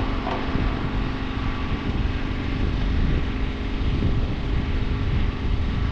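An engine running steadily at a constant speed, with a low, even hum and no change in pitch.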